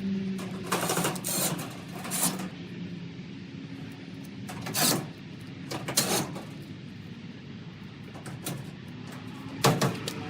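Maytag Bravos electric dryer running with a steady motor hum, broken by about six brief knocks and rattles.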